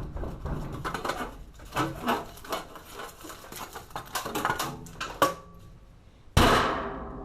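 Metal objects being handled, clinking and clattering irregularly, with one sharp metallic tap that rings briefly about five seconds in. A sudden loud burst of noise starts near the end and fades away.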